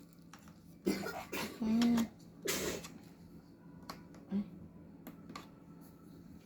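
A person makes a few short vocal sounds, then coughs once about two and a half seconds in. A few faint small clicks follow.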